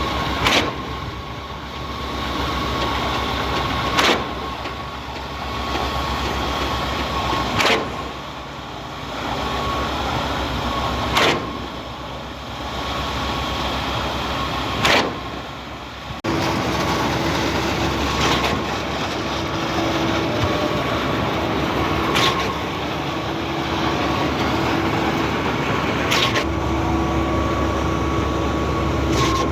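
Cifa truck-mounted concrete pump running under load, with a sharp knock about every three and a half seconds as the pumping cylinders change stroke, over a steady engine drone; a further steady hum joins about halfway through.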